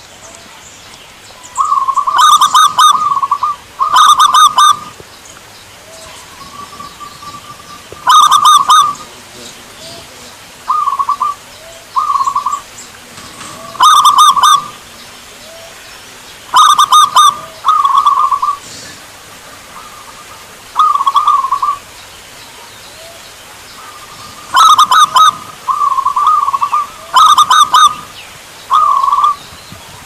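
Zebra doves (perkutut) cooing: about a dozen short trilled phrases, each a second or less, coming every one to three seconds. It is a perkutut lure recording, played to coax a caged perkutut that has stopped singing into cooing.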